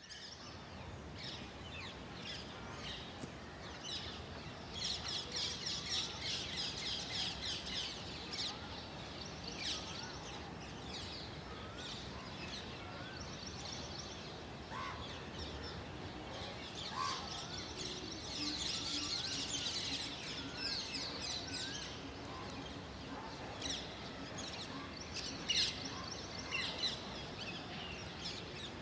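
Dawn chorus of several birds chirping and calling, with bursts of rapid high trills and a few lower wavering whistles, over a steady background hiss; a faint low hum is heard through the middle.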